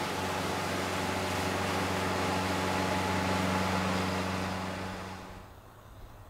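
Motorboat cruising past: a steady engine drone with the rush of its wake, swelling a little as it goes by and then cutting off about five and a half seconds in.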